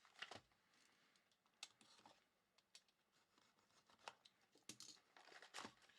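Near silence with a dozen or so faint, scattered clicks and light scratches.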